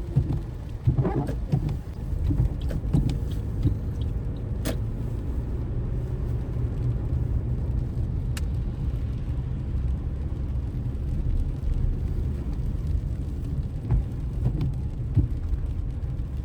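Steady low road and engine rumble of a four-wheel-drive vehicle heard from inside the cabin while driving, with a few short sharp clicks, two of them standing out about five and eight seconds in.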